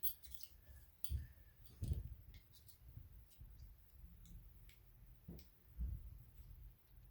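Small parts of a paintball marker being handled and fitted together on a bench: scattered light clicks with a few dull knocks, the loudest about a second and two seconds in and again near six seconds.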